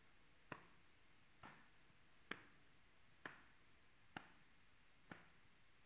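Six soft slaps of hands landing on the body, about one a second in an even rhythm, as loose arms swing round in a twisting qigong exercise that pats the belly below the navel and the lower back.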